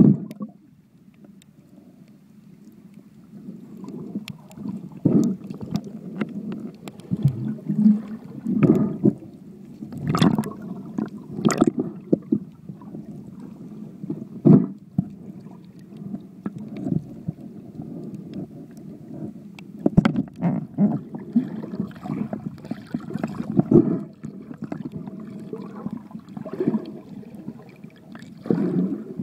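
Muffled underwater gurgling and rumbling of moving water, picked up by a phone sealed in a waterproof case, with irregular swells and scattered knocks and clicks against the case.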